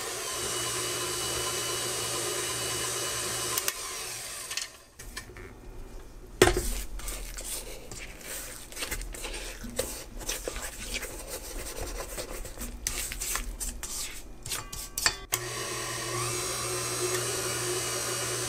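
KitchenAid Classic Plus tilt-head stand mixer running steadily with its flat beater creaming cookie dough, then switched off about four seconds in. A sharp knock follows, then scraping and small clicks of a spatula against the stainless steel bowl. The mixer starts up again near the end.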